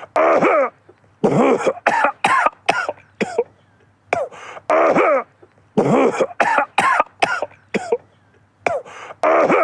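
A man coughing over and over in clusters of several coughs, short sharp ones mixed with longer ones that carry some voice, with brief pauses between the clusters.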